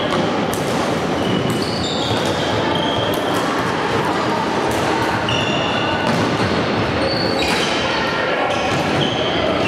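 Floorball game play in a sports hall: many short high squeaks and sharp knocks over a steady din of voices, echoing in the hall.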